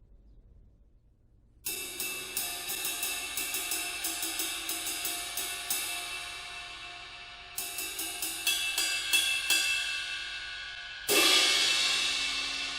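China cymbal played with a stick. A quick run of strokes, about four a second, sets the cymbal ringing. After a short pause comes a second run, then one hard crash near the end that rings on and slowly fades.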